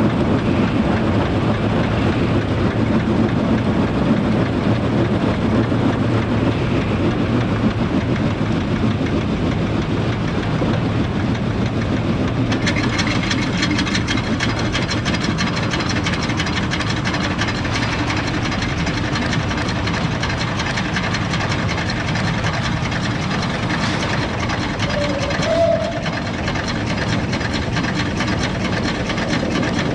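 Steam-hauled train running along the line: wheels rumbling on the track under the steady working of the 0-8-0 tank locomotive. About twelve seconds in the sound turns brighter and hissier.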